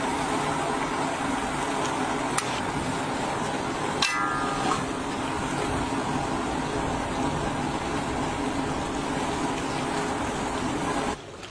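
Large karahi of chicken curry at a rolling boil, a steady bubbling hiss, with a sharp click about two and a half seconds in and another about four seconds in.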